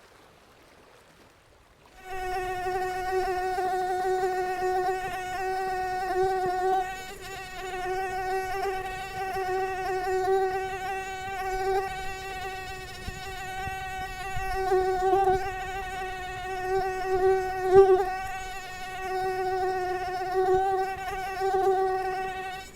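Mosquito buzzing in flight: a steady high whine with a row of overtones that starts suddenly about two seconds in and swells and fades in loudness.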